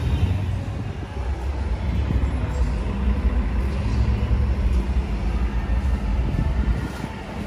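Street traffic, with a heavy vehicle's engine running in a steady low rumble.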